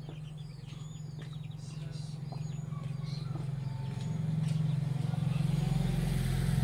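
A motor vehicle's engine runs with a low, steady hum that swells to its loudest over the last two seconds as it comes closer. Birds chirp over it in the first few seconds.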